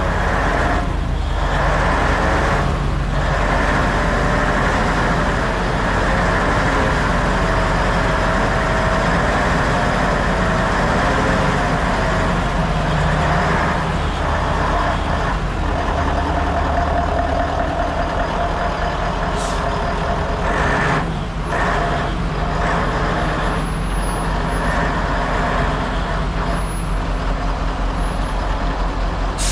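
Bell B40B articulated haul truck's diesel engine idling steadily and loud, with a few short hisses over it.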